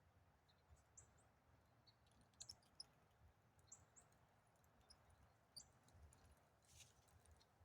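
Near silence: faint outdoor ambience with scattered short high chirps of small birds and a few faint clicks.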